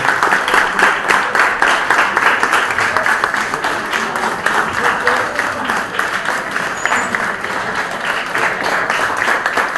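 Sustained applause from a large audience of over a hundred students, many hands clapping at once in a standing ovation.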